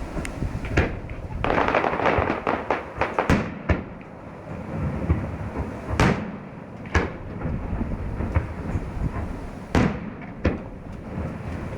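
Fireworks going off: a rapid crackling volley of bangs about a second and a half in, then single loud bursts at intervals, with rumbling echoes between them.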